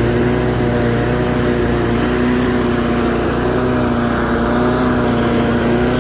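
8.5 hp Briggs & Stratton pressure-washer engine on a homemade walk-behind mower, running steadily under load while the deck cuts grass; its pitch holds even throughout.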